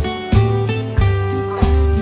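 Background music: guitar strumming with a steady beat, about one strong stroke every half second or so.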